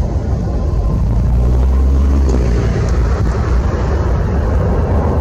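Twin-engine jet airliner's engines running on the runway: a loud, steady rumble that swells a little about a second in.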